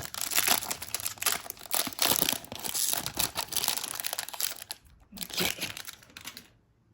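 Trading-card pack wrapper being torn open and crinkled by hand for about five seconds, then the crackling stops.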